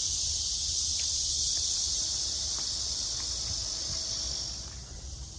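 Chorus of insects: a dense, steady high-pitched buzz that eases off near the end.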